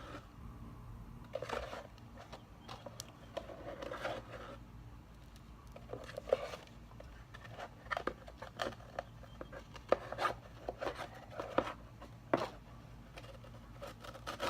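Scattered light clicks, taps and short scrapes of slime-making containers and bottles being handled and opened, over a low steady hum.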